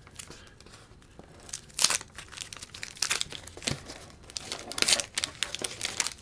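Wax-paper wrapper of a 1989 Donruss baseball card pack being torn open and crinkled by hand, in a run of irregular crackles and rips.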